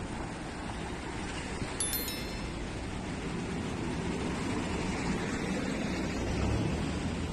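Street traffic: car engines running as cars pull out across a junction, with a deeper, steadier engine note coming in near the end. About two seconds in, a short bright chime sounds over the traffic.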